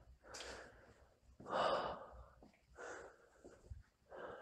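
A person's breathing close to the microphone: four short, noisy breaths about a second and a half apart.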